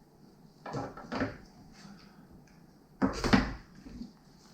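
Knocks and clatter from parts and packaging being handled on a work surface: two short knocks under a second in, then a louder clatter about three seconds in.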